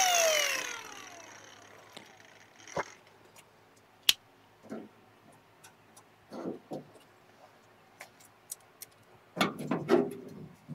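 A grinder spinning down after cutting into the sheet-metal elevator housing, its whine falling in pitch and fading over about the first second. Then scattered sharp metallic clicks and knocks from handling tools and parts, the loudest cluster near the end.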